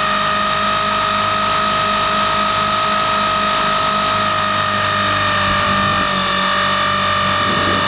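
Onboard sound of a Trex 450-clone electric RC helicopter in flight: a steady high whine from the motor and drive over a low pulsing rotor hum, dipping slightly in pitch about six seconds in.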